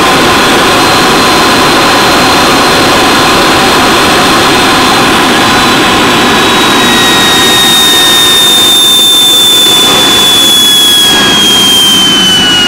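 Small jet turbine engine on a custom bike running loud: a dense rushing noise with a high, steady whine. In the second half the whine slowly falls in pitch as the turbine slows.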